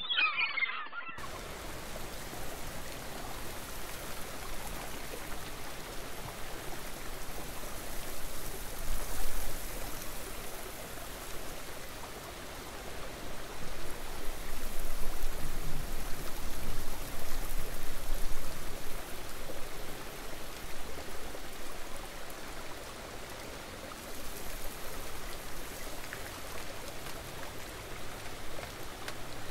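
Steady outdoor rushing noise with no distinct events, swelling louder briefly around a third of the way in and again for a few seconds past the middle. A short pitched call-like sound ends about a second in.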